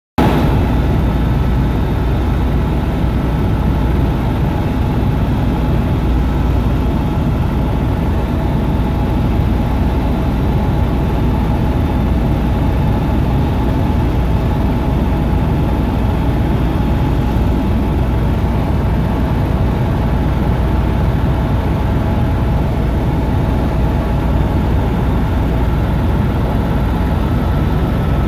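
Helicopter in flight heard from inside the cabin: a loud, steady drone of engine and rotor with a deep rumble underneath and a few thin, steady whining tones above it.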